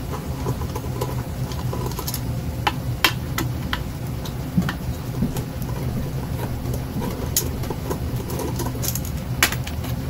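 A 4 mm hex key working screws out of the metal base of an Olympus BH2 microscope: scattered small clicks and taps, a dozen or so at uneven intervals, over a steady low hum.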